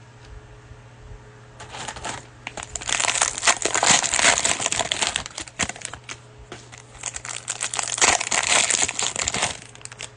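Cellophane wrapper of a trading-card cello pack crinkling and crackling as it is handled and opened, in two long bouts.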